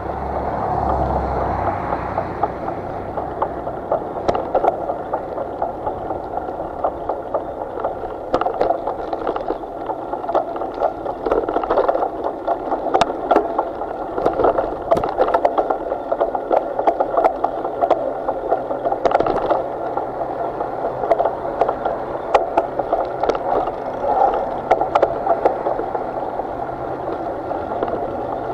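Water rushing and gurgling along the hull of a small paddled boat, with many scattered clicks and knocks.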